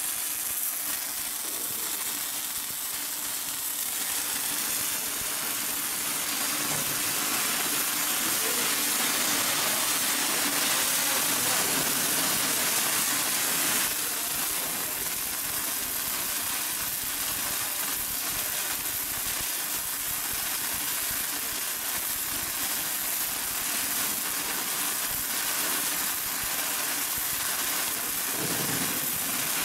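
Automatic wire-fed (MIG) welding arc on a pipe-to-flange seam, hissing and crackling steadily, with a change in tone about halfway through.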